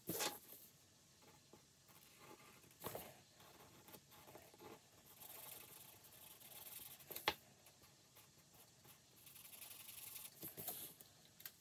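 Faint scratching of a colouring tool shading in a paper sheet, in uneven strokes, with a few sharp taps.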